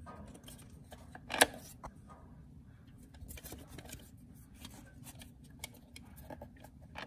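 Light clicks and rustles of hands working on metal and plastic parts under a brake lathe, faint and scattered, with one sharper click about a second and a half in.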